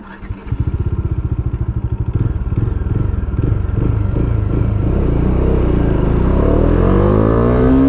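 Bajaj Dominar 400's single-cylinder engine under hard acceleration. It opens up with even pulses at low revs, and its pitch climbs steadily as the revs rise, most clearly over the last couple of seconds.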